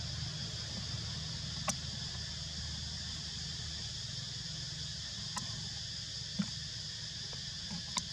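Steady forest background: an even low hum with a high, even drone over it, broken by a few faint sharp clicks about one and a half, five and a half, six and a half and eight seconds in.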